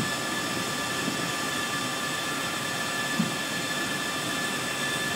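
Steady machinery whine on a warship's flight deck, several high fixed tones over a constant rushing hiss of wind and sea, with a brief bump about three seconds in.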